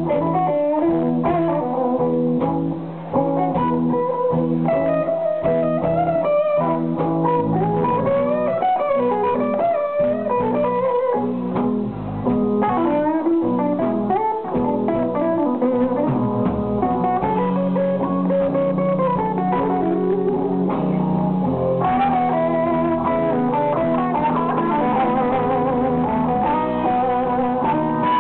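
Live blues-rock band playing without vocals: electric guitar playing bending melodic lead lines over drums.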